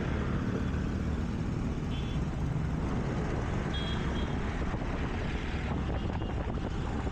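Scooter ride heard from the rider's camera: the small engine running steadily under a rush of wind and traffic noise. Two brief high beeps sound, about two seconds in and again near four seconds.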